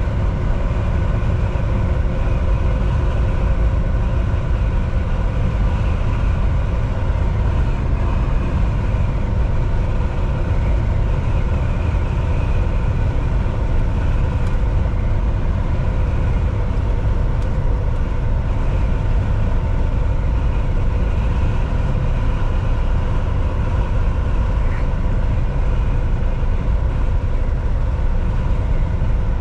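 Volvo VNL 760 semi-truck cruising at highway speed: a steady engine drone and low road rumble, with a faint even hum over it.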